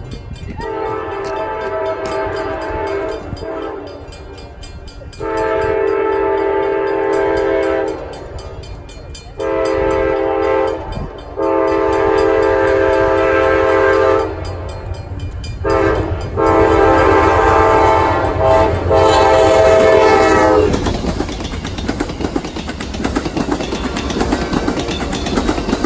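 Locomotive air horn sounding a long series of blasts of varying length, growing louder as the train approaches. About 21 s in the horn stops, and the train runs past with its wheels clattering over the rail joints.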